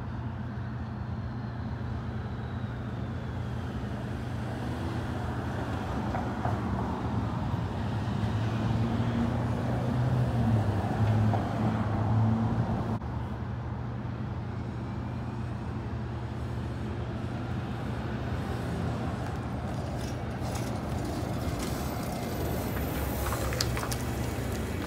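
City bus diesel engine with street traffic: a steady low engine hum that swells in the middle as vehicles pass and the bus approaches and pulls up alongside. A few short hisses come near the end as the bus stops.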